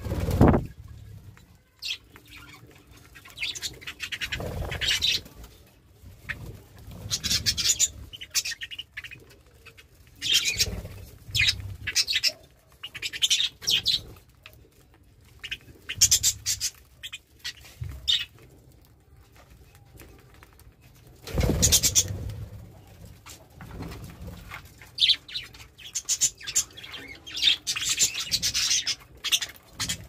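A flock of budgerigars chirping and chattering in bursts every few seconds, with short fluttering noises among the calls, the loudest about a fifth of the way before the end.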